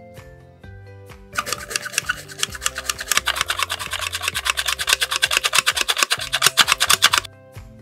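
Handheld flour sifter working flour and cocoa powder through its mesh: a fast, even rasping, about ten strokes a second. It starts about a second and a half in and cuts off near the end.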